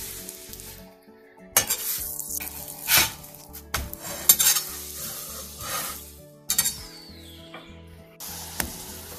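Puran poli sizzling in ghee on a flat griddle (tawa), with a metal spatula scraping and pressing it against the pan in several sudden strokes.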